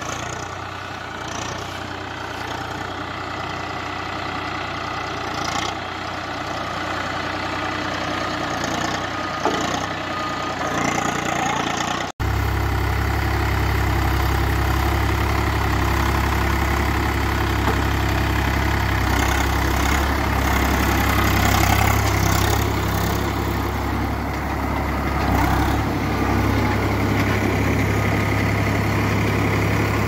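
Agri King 2055 tractor's diesel engine running steadily. About twelve seconds in it cuts abruptly, and then runs much closer, louder and deeper.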